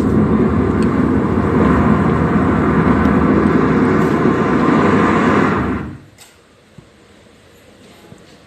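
Imitation rocket-launch rumble, made live without props: a loud, steady, dense roar that cuts off suddenly about six seconds in.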